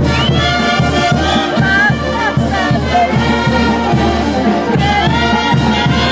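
Brass band playing a lively dance tune, trumpets and trombones over a steady drum beat.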